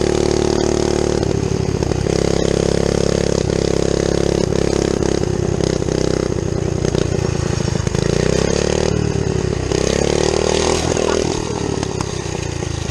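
Mini bike's small engine running at speed. It holds a steady pitch at first, then falls and rises in pitch several times as the throttle changes, and gets quieter near the end.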